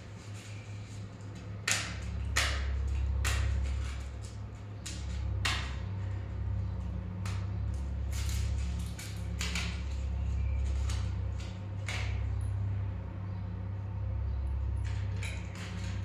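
Hands handling cardboard and plastic smartwatch packaging: irregular clicks, taps and rustles as the box's inner compartment and accessories are pulled out, over a steady low hum.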